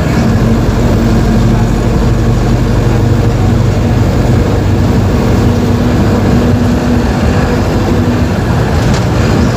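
Diesel engine of a Mercedes-Benz OF-1721 BlueTec 5 bus running steadily, with a low, even engine hum.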